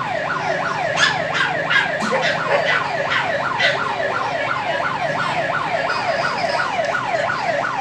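Emergency vehicle siren in a fast yelp, its pitch dipping down and back up about three times a second.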